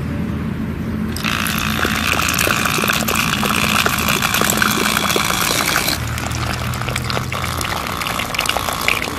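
Water gushing from a mini water pump's outlet pipe and splashing onto wet mud, starting about a second in, over the steady hum of the pump's small motor.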